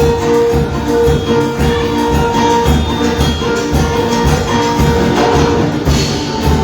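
Live band music with a steady beat, held melodic notes and tambourine.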